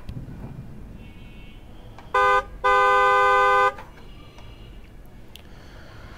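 Car horn honking twice: a short toot about two seconds in, then a longer honk of about a second.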